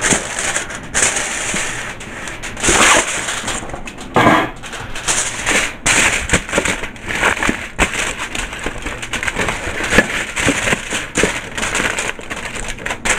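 Aluminium foil crinkling and crackling as hands press and fold a sheet of it into a baking pan, with many sharp crackles throughout.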